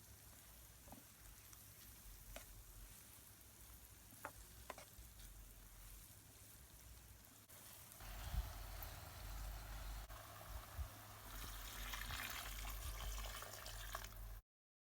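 Food sizzling in a pot on a coal pot stove, with a few faint clicks. The sizzle gets louder about halfway through, then stops abruptly near the end.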